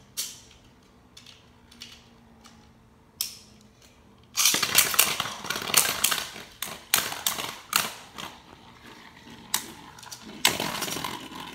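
Beyblade Burst spinning tops battling in a bowl: a few light clicks at first, then from about four seconds in a loud, continuous rattling with many sharp knocks as two tops clash against each other and the bowl's sides.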